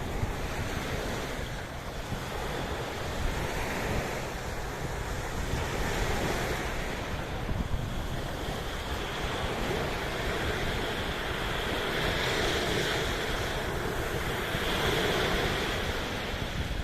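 Sea surf washing and breaking, swelling and easing every few seconds, with wind buffeting the microphone as a low rumble.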